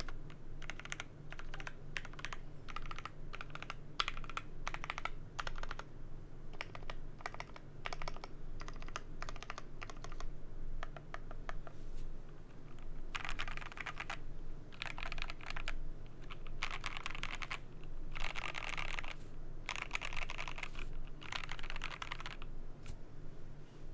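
Typing on a GMMK Pro mechanical keyboard with lubed Gateron Ink Black linear switches, a polycarbonate plate and DCP keycaps. Steady keystrokes for the first half or so, then rapid bursts of keystrokes about a second long with short pauses between them.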